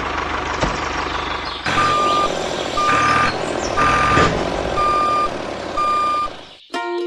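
Vehicle reversing beeper sounding five times, about once a second, over a steady engine-like running noise. Music starts just before the end.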